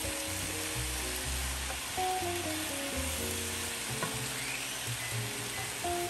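Chopped cabbage frying in a skillet with a steady sizzle, being stirred and turned with a silicone spatula. Background music with a melody and bass line plays along.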